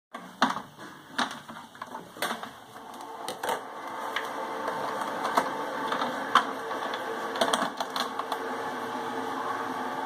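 Plastic clicks and knocks of a Braun Tassimo coffee maker's lid being opened and closed as a pod is loaded, then a steady mechanical hum from the machine that builds from about four seconds in.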